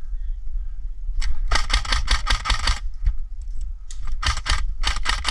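Airsoft rifle fire: rapid sharp shots, several a second, in two strings, the first starting about a second in and the second about four seconds in.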